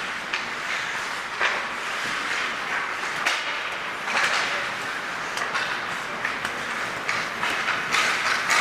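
Ice hockey play: a steady scraping hiss of skates on the ice, broken by several sharp clacks of sticks and puck at uneven moments.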